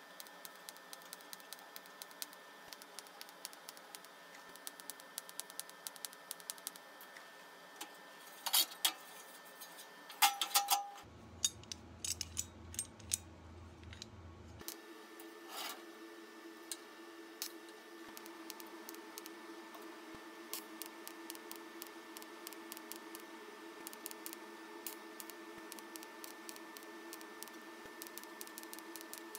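TIG welding on a sheet-steel stove body: faint crackling ticks over a steady thin whine, with a few sharp metal clicks about a third of the way in. In the middle a few seconds of low hum intrude, from a different shot.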